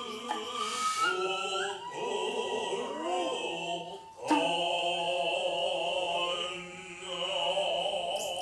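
Noh chanting (utai) by a male voice in long, wavering held notes, over a high, shrill nohkan flute line, with one sharp hand-drum stroke about four seconds in.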